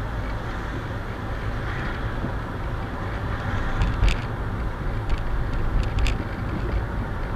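Steady road and engine noise heard from inside a moving car, a continuous low rumble with tyre hiss, with a few brief clicks around the middle.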